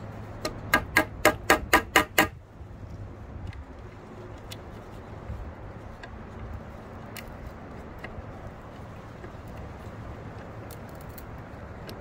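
About seven sharp metal-on-metal taps, about four a second, as a screw is tapped into a pine board to start it. Faint scattered ticks follow as the screw is turned in with the multitool's screwdriver.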